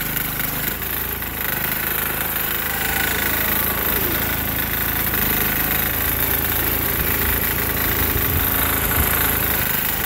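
Single-cylinder 6 hp diesel engine of a Sears Suburban garden tractor running steadily under load while pushing a snow plow, with a few low thumps near the end.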